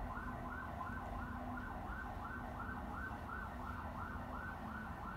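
Electronic siren in a fast warble, its pitch rising and falling about three to four times a second at an even level.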